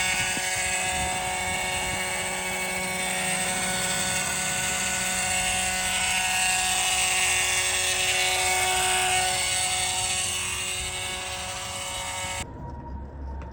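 A small motor whining steadily, with several fixed tones over a hiss, cut off abruptly near the end.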